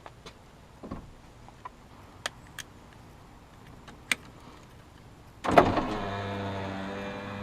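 A few light clicks and taps, then about five and a half seconds in a Subaru Outback's power window motor starts with a thump and runs with a steady hum as the glass travels in the door.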